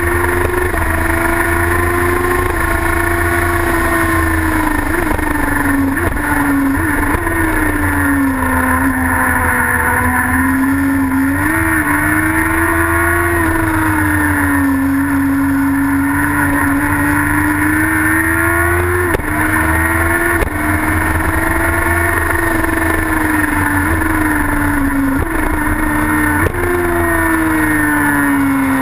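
Racing sidecar outfit's engine heard onboard at race speed: a loud, continuous engine note whose pitch swells and sags through the corners, stepping abruptly down about two-thirds of the way in and sharply up again near the end.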